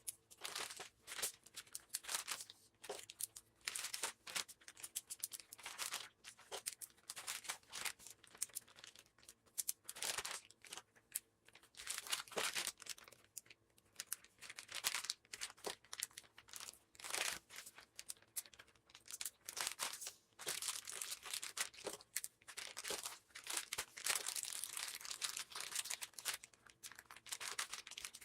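Plastic packaging handled at close range: irregular crinkling and rustling, with some tearing, as meat is wrapped and bagged into portions.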